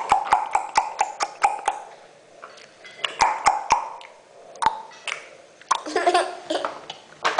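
A baby clicking its tongue: a quick run of about six sharp clicks a second, then scattered single clicks, then a short burst of voiced babbling near the end.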